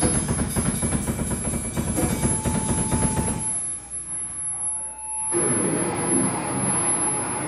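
Live rock band playing loud, with a drum kit and amplified guitar. About three and a half seconds in, the band drops out for under two seconds, leaving a single held guitar note, then comes back in at full volume.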